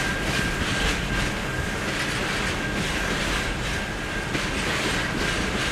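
Freight train wagons, steel-coil flat wagons and empty flat wagons, rolling past at speed. There is a steady wheel-on-rail rumble, with repeated clatter as wheels cross rail joints and a thin high steady tone over it.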